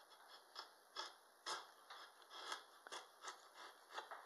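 Drawknife shaving a wooden spoon blank held in a spoon mule: a series of short, quiet pulled cuts, about two a second, each a brief scrape of the blade through the wood as it takes a shaving.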